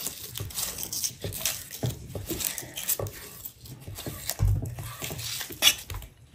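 Large chef's knife slicing raw beef into chunks on a wooden chopping board, the blade knocking on the board with each cut; one louder knock near the end.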